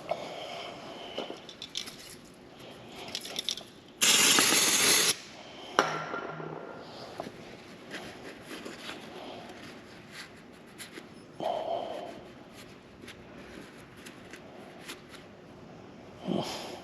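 Hands working on a motorcycle brake caliper: small scrapes, rubs and clicks of tools and metal parts, broken about four seconds in by a loud hiss lasting about a second, like a burst from an aerosol spray.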